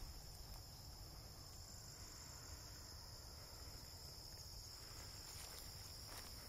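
Faint, steady high-pitched trilling of an insect chorus, unbroken throughout.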